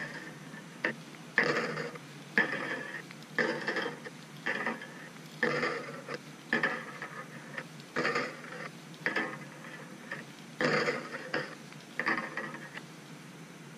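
Wire leader being twisted by hand into a haywire twist through a hook eye: a series of short scraping creaks, about one a second, as each turn of the wire is wrapped.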